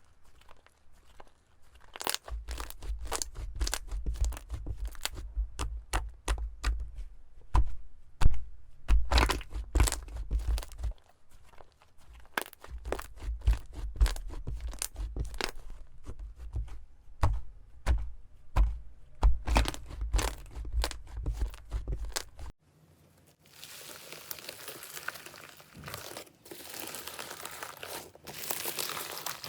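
Slime being squeezed and pressed by hand, giving a run of sharp crackles and pops. About three-quarters of the way through it switches to a denser, steady crinkling.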